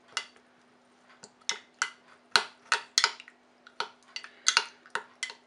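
Metal spoon clinking against the inside of a small drinking glass while stirring chopped garlic and parsley in white wine: a run of sharp, irregular clinks, about three or four a second.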